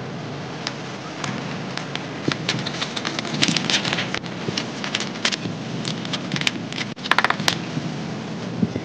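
Sheets of printer paper rustling and crackling as they are rolled and pressed into a tube by hand, with sharp irregular crinkles over a steady background hiss and a quick run of crackles about seven seconds in.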